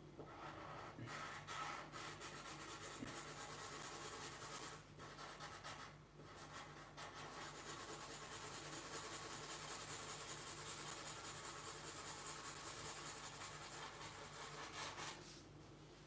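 Marker pen rubbing and scratching across paper as black areas of an ink drawing are filled in, with brief pauses about five and six seconds in. It stops about a second before the end.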